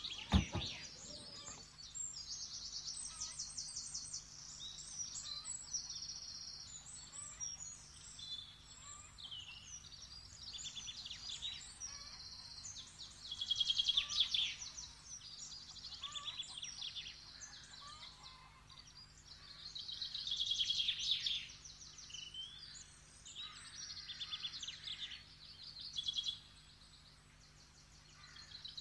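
Small birds chirping in busy, repeated high calls, loudest about halfway through and again about two-thirds in, with a sharp click right at the start and a faint steady low hum underneath.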